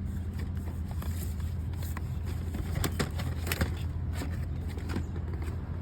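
Light clicks and knocks of plastic movie cases being handled and flipped through, scattered irregularly over a steady low rumble.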